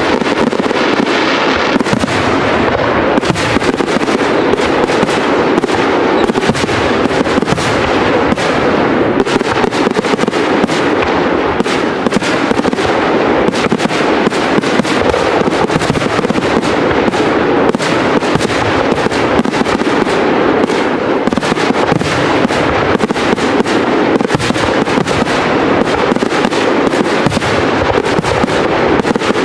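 Professional fireworks display: aerial shells bursting in rapid, unbroken succession, a dense stream of bangs and crackle with no pause.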